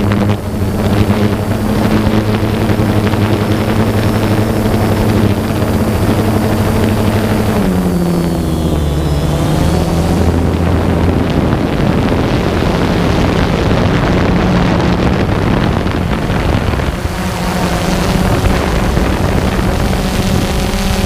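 An aircraft's motor and propellers humming steadily, with wind on the microphone. The pitch drops about eight seconds in and rises back about seventeen seconds in.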